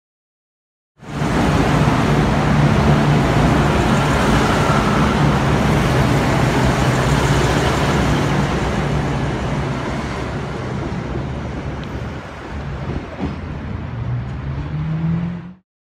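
V/Line VLocity diesel railcar passing close by, its engine drone and wheel-on-rail noise loud at first and easing off after about ten seconds. Near the end a low engine note rises.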